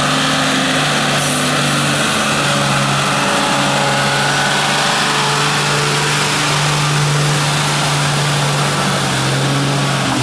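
Unimog U1300L's six-cylinder diesel engine running steadily as the truck churns through deep, sticky mud.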